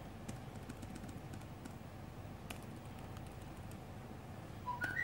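A few sparse computer-keyboard keystrokes, light clicks, as leftover text is deleted from a name field, over a steady low background hum. A brief high chirping sound comes near the end.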